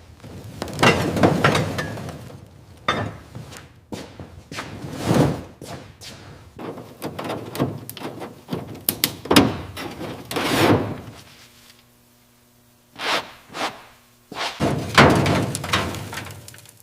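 A run of knocks, thunks and scraping noises from metal parts being handled and worked on during a car teardown. A faint steady hum shows in a lull about two-thirds of the way through.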